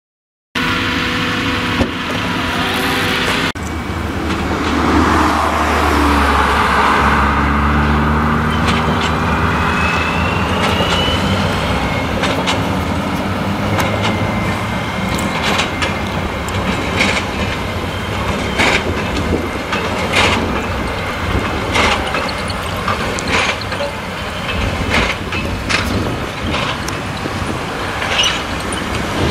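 Fendt tractor's engine running under load, pulling a Krone BiG Pack large square baler as it bales hay, with the engine note rising a few seconds in. The baler's machinery runs steadily with sharp knocks roughly once a second.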